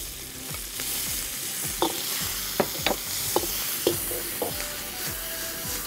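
Shrimp and scallops sizzling in a very hot wok while a metal wok ladle stirs them, scraping and clinking against the wok several times from about two seconds in.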